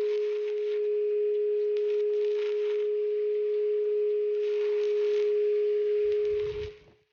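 Angle grinder with a flap disc running with a steady whine while it grinds over welds on thin steel tubing, with a hiss that swells and fades as the disc touches the metal. Near the end the whine wavers and the sound cuts off.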